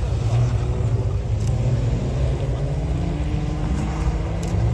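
Car engine running at the start line of a gymkhana run, a steady low rumble with a faint note that rises slowly.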